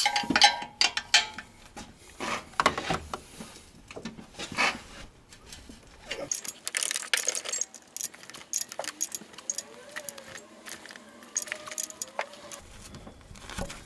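Steel wrench clinking and clicking on a turbo attachment bolt and the surrounding bracket as the bolt is tightened: a run of irregular sharp metallic clicks.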